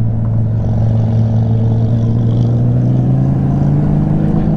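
Honda Goldwing GL1500's flat-six engine cruising at highway speed, a steady drone whose pitch creeps up slightly.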